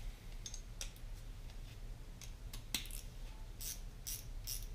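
Metal hand tools clinking in a toolbox drawer as an 8 mm socket is picked out and fitted onto a ratchet: faint, scattered light clicks, closer together near the end.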